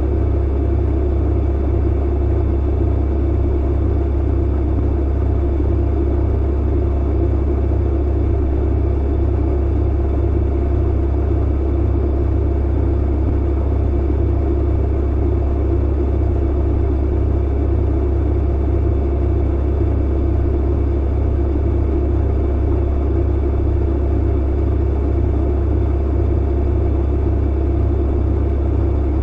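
Clothes dryer running steadily: a constant low hum with a band of noise above it and faint steady tones, unchanging throughout.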